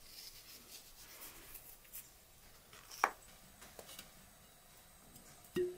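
Quiet handling sounds while dough ingredients are added: faint scrapes and ticks from the wooden salt pot and lid, a sharp click about three seconds in, and a short knock with a brief ring near the end.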